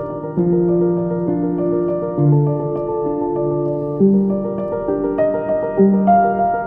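Background music: slow piano playing sustained notes and chords.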